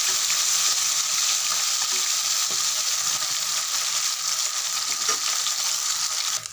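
Parshe fish sizzling as they shallow-fry in hot oil in a metal kadai, a steady frying hiss, with a metal spatula scraping the pan as the fish are turned. The sizzle cuts off suddenly near the end.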